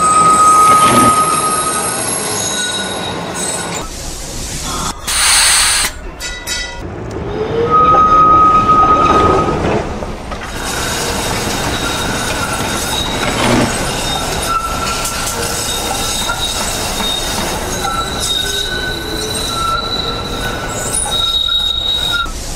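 Tram running on rails, its wheels squealing in steady high-pitched tones, loudest near the start and again about eight seconds in, over a continuous rolling noise.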